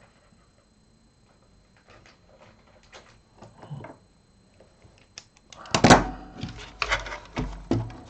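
Handling of the opened DAB radio's parts: light clicks and scrapes, then a run of louder knocks and clunks starting about two-thirds of the way through.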